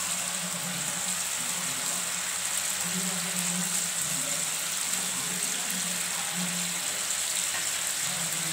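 Steady sizzling hiss of a thin poppy-seed paste gravy simmering in a frying pan.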